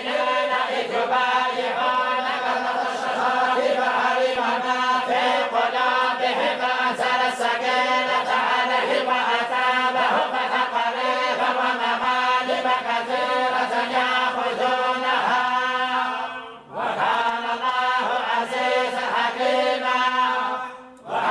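A group of voices reciting the Quran in unison in the Moroccan collective style, a slow, drawn-out chanted melody. The recitation breaks off briefly for breath about 17 seconds in and again near the end.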